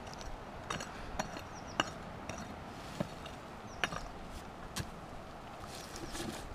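Prospector's hand pick striking into hard, stony dirt, about six sharp blows a second or so apart, digging down to a metal-detector target.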